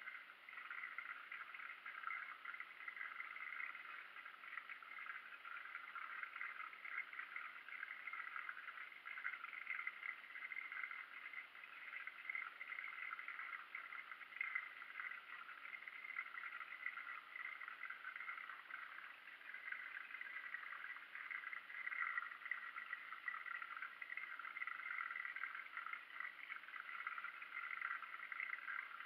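Aquarium water bubbling steadily, a faint continuous crackling fizz with no break.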